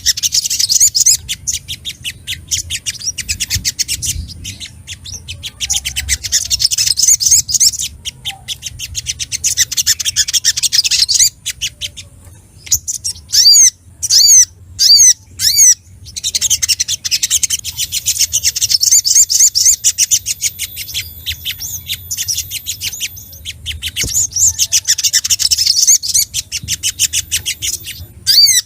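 Sogok ontong (little spiderhunter) singing excitedly: long runs of very rapid, high chattering trills, broken about halfway through by a few loud separate hooked whistle notes, then more fast trilling.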